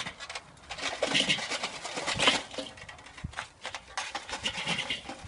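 Burning charcoal tipped out of a homemade metal chimney starter onto the charcoal grate of a Weber kettle grill. The lumps clatter and scrape against the metal in bursts of rattling.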